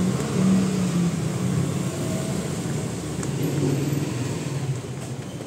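A motor vehicle engine running with a steady low hum, easing off slightly toward the end.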